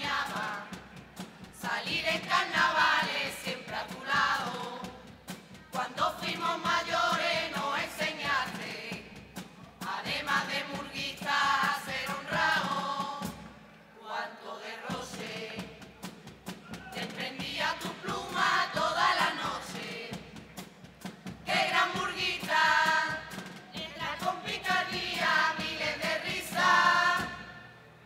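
Andalusian Carnival murga singing a pasodoble in chorus, several voices together, with a short break in the singing about halfway through and another near the end.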